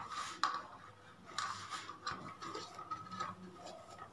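Hand kneading flour and milk into dough in a stainless steel bowl: irregular soft scrapes and light taps of fingers and dough against the metal.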